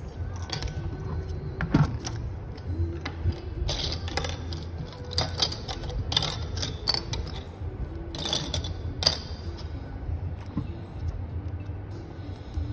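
Handling noise: small plastic clicks, taps and rustles as a phone screen, a small adapter board and a flex ribbon cable are picked up and fitted together, the clicks thickest between about four and nine seconds in, over a steady low hum.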